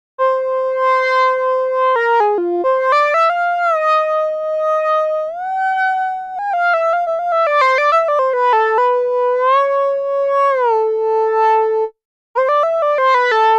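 Softube Model 72 software synthesizer, a Minimoog emulation, playing a single-voice lead melody with a bright tone and gliding portamento between some notes. It breaks off briefly near the end, then carries on.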